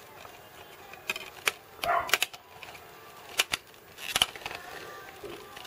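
Irregular sharp plastic clicks from a DVD case's centre hub as fingers press on the disc to release it, about half a dozen in all.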